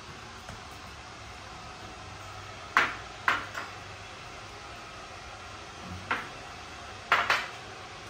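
Ceramic rice bowls and chopsticks clinking against dishes and the glass tabletop during a meal: about six sharp clinks in three clusters, the loudest about three seconds in and near the end.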